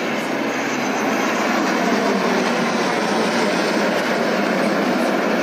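Steady engine roar of a low military flypast: a transport aircraft flanked by fighter jets passing overhead, swelling slightly about a second in and holding loud.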